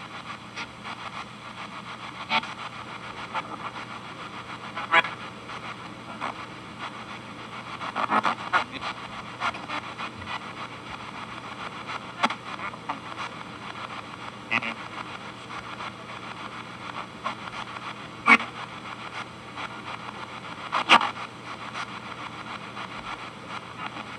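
P-SB7T spirit box sweeping the FM band, played through a noise-gate pedal into a small Esteban G-10 guitar amp: steady radio static with a low hum underneath, broken every few seconds by short snatches of sound as the sweep passes stations.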